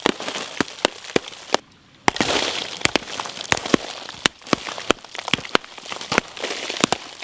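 Hammer blows smashing a slab of block ice: sharp, irregular knocks a few times a second, with ice chunks cracking and crunching between them and a short pause about one and a half seconds in.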